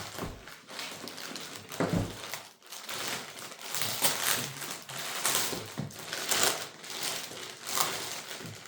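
Packaging crinkling and rustling in irregular bursts as a new suitcase is handled during unboxing, with a couple of soft thumps, one at the start and one about two seconds in.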